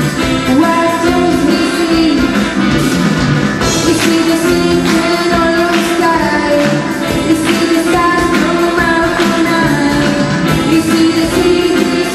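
Live pop-rock band playing a song with a lead singer: drum kit keeping a steady beat under guitars and keyboard.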